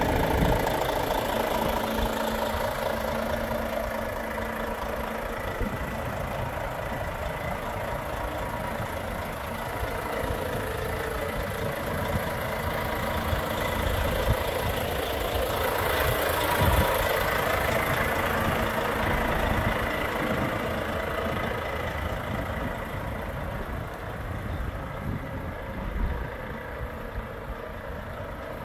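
Volvo FH 540 truck's 13-litre straight-six diesel idling steadily.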